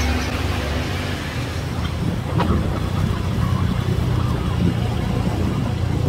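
Motorbike engine running steadily while riding along a road, with wind and road noise.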